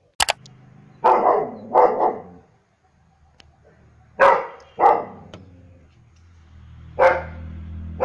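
German shepherd barking in short groups of one or two barks, about every three seconds. There is a sharp click just after the start.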